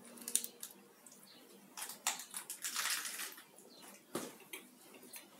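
A person biting into and chewing a hot dog layered with crisp iceberg lettuce: crackly, wet mouth and crunch sounds, densest about two to three seconds in, with a sharp click about a second later.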